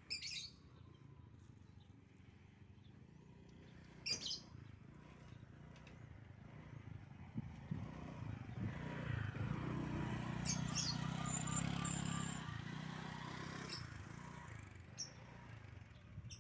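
Faint outdoor ambience with short bird chirps near the start and about four seconds in. Then an engine rises from about eight seconds in, is loudest around ten to twelve seconds, and fades away.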